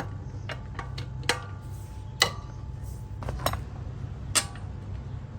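Metal hand tools clinking against each other: a handful of sharp, short-ringing clinks at irregular intervals, over a steady low hum.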